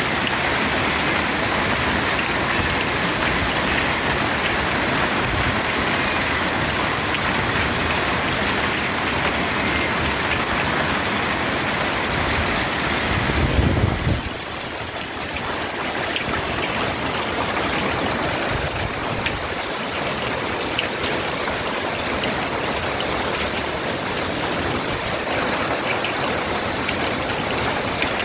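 Heavy rain mixed with hail: a steady dense hiss of falling water with scattered small ticks of impacts. About halfway through there is a brief low thump, after which the sound is a little quieter.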